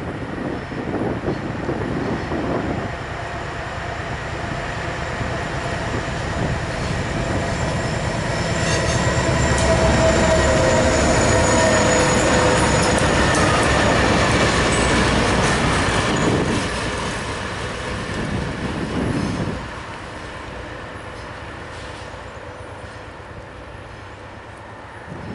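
BNSF diesel locomotive and train passing close by: engine noise and the clatter of wheels on rails build up, peak with a thin whine as the locomotive goes past, then drop away sharply about twenty seconds in as the train moves off.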